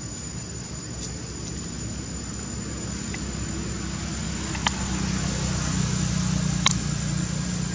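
A low motor hum that grows louder about halfway through, with a thin steady high-pitched whine above it and two sharp ticks in the second half.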